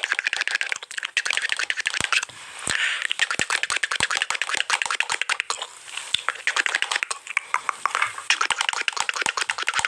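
Dense, rapid crackling made of many small clicks, with a few sharper cracks standing out.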